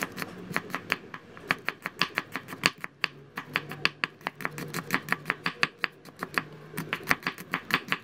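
Knife slicing garlic cloves on a wooden cutting board: quick, regular taps of the blade striking the board, about four to five a second, with a short pause about three seconds in.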